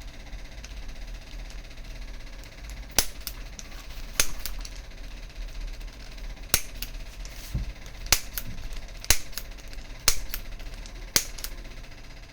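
Spring-loaded manual chiropractic adjusting tool firing: a series of sharp clicks, starting about three seconds in and coming roughly once a second, with fainter clicks between them.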